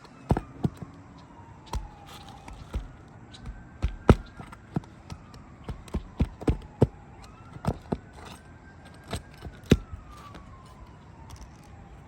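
Sharp, irregular metal knocks of a hammer driving a roofing snake under a shingle to pull its nails. Behind them a distant siren slowly rises and falls.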